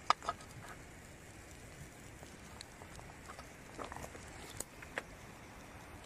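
Wood campfire embers crackling: a few sharp, irregular snaps over a faint background. The loudest snaps come just after the start, with more about four and five seconds in.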